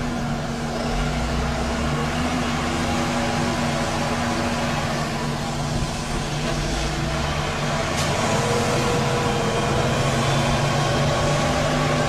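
A heavy vehicle's engine running steadily.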